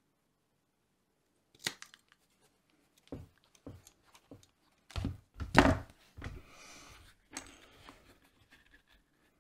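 Rotary leather hole punch handled and squeezed through a leather strap: a string of clicks and knocks, the loudest crunch about five and a half seconds in. A second or so of rustling follows, then lighter handling of the leather pieces.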